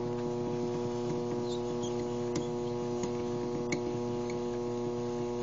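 A small cue lathe's electric motor running with a steady hum as it turns the cue through a linen wrap, with a few faint ticks.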